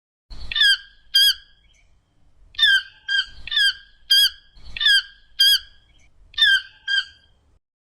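Toucan giving a series of about ten short, harsh, squawking calls, each with a slight waver in pitch, some coming in quick pairs.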